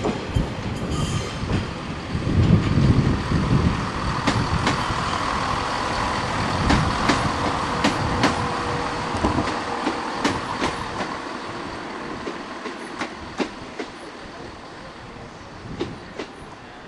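CrossCountry diesel multiple unit passing close and pulling away: wheels clicking over rail joints with a squeal from the wheels and rails, and the engine rumbling. The sound fades in the second half as the train moves off.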